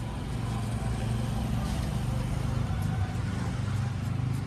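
A vehicle engine idling steadily with a low, even rumble.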